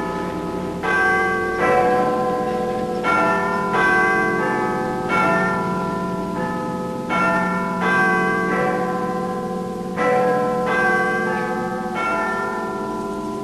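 Church bells ringing: a run of struck notes at different pitches, roughly one a second, each one ringing on under the next.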